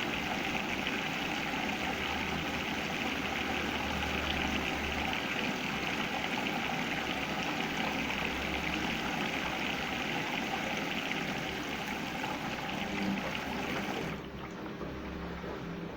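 Samsung washing machine filling with water at the start of a cycle: a steady rush of inflowing water over a low hum, cutting off sharply about fourteen seconds in.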